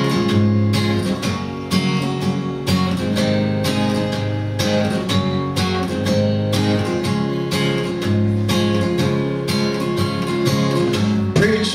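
Acoustic guitar strummed in a steady rhythm, an instrumental break with the chords changing every second or two and no singing.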